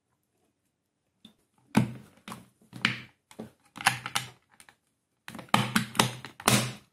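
Plastic housing halves of a Radio Progres soldering gun clicking and knocking together as the cover is pressed back on. A few sharp clicks start about two seconds in, followed by a quicker run of clicks and knocks near the end.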